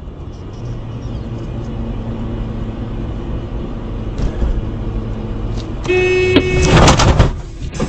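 Car driving with steady engine and road noise; about six seconds in, a car horn sounds briefly, followed at once by a loud, harsh noise lasting about a second.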